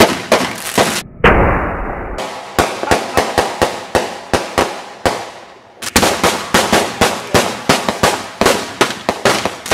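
Fireworks going off in a rapid series of sharp bangs and pops, with a brief lull about five seconds in before the bangs pick up again.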